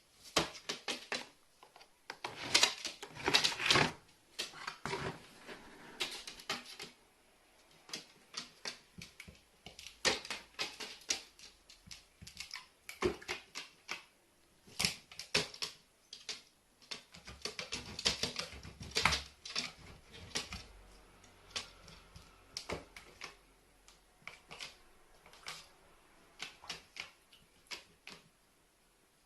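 Irregular runs of rapid clicks and taps, loudest and densest about two to four seconds in.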